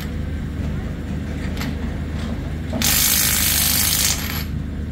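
Machinery at a fairground ride being dismantled: a steady low engine hum with a few sharp metallic clicks, then a loud hiss just under three seconds in that lasts a little over a second and stops suddenly.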